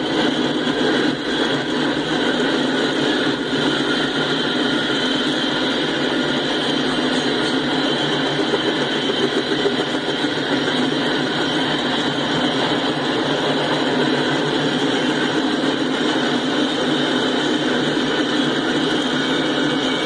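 Freight cars rolling past on the rails: the steady running noise of steel wheels on track.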